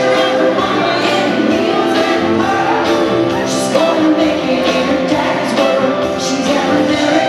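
Live country band playing: a woman sings lead over fiddle and electric guitar.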